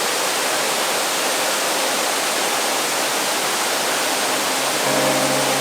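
Waterfall rushing in a steady, unbroken roar of falling water. Near the end, some steady musical tones come in over it.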